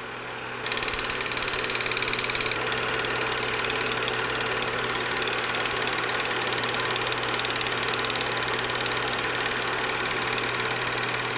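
Film projector running: a rapid, even clatter of the film-advance mechanism over a steady motor hum, the clatter growing louder about a second in.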